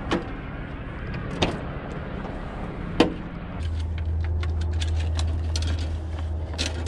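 Three sharp knocks, then a steady low hum with many small clicks and clatter as gear is handled in a camper van's storage cubby under the bed.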